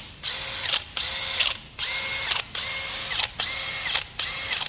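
Makita 40V max XGT brushless drill run free in about six short trigger pulls, each a quick spin-up to a steady whine that cuts off sharply.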